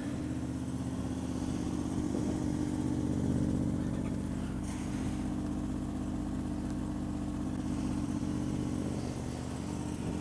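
A vehicle engine idling steadily at close range, an even low hum that holds without revving.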